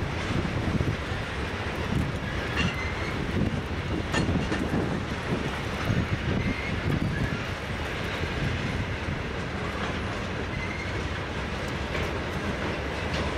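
Freight train's tank cars rolling past: a steady rumble of steel wheels on rail, broken by scattered clacks of wheels over the track and a few brief, faint wheel squeals.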